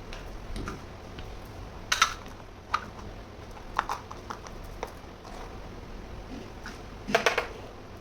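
Small toy kitchen pieces being handled during unboxing, giving scattered clicks and taps. The loudest are a quick cluster of clacks about two seconds in and another near the end.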